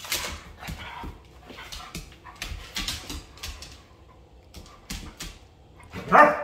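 A Doberman playing on a hardwood floor, with scattered claw clicks and scuffles, then one short, loud bark about six seconds in.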